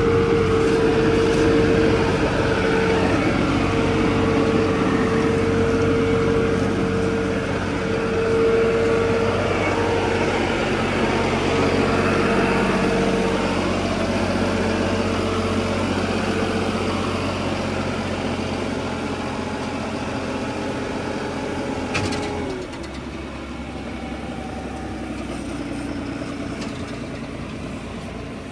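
Heavy tow truck's diesel engine running steadily with a whine over it. About three-quarters of the way through, a click sounds, the whine drops away and the engine carries on quieter.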